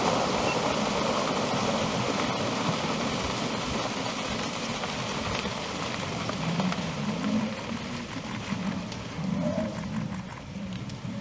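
A herd of African buffalo stampeding through shallow river water: a loud, continuous rush of splashing and pounding hooves that slowly eases. From about six seconds in, low grunting calls from the buffalo rise over it.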